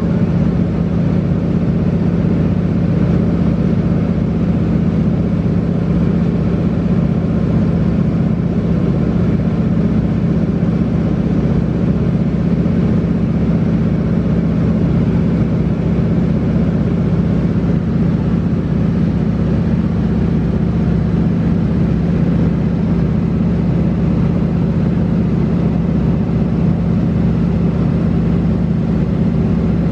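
De Havilland Beaver floatplane's piston engine and propeller in level cruise, heard inside the cabin as a loud, steady drone with a strong even hum that holds the same pitch throughout.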